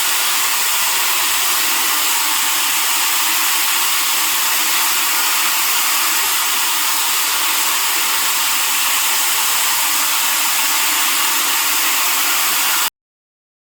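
Floor sander running steadily on the garage floor, an even, loud whirring hiss, which cuts off abruptly near the end.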